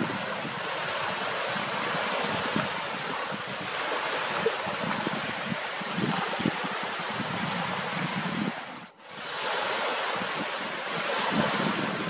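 Wind buffeting the microphone over small waves lapping on a reservoir, a steady rushing noise with irregular low thumps; it drops away briefly about nine seconds in.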